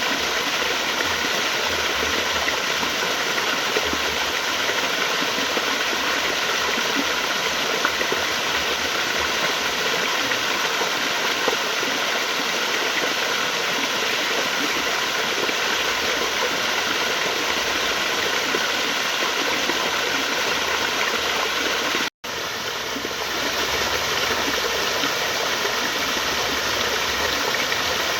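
Steady rushing of flowing water, an even unbroken wash of noise. About 22 seconds in it cuts out for a split second, then resumes slightly quieter and swells back to its level.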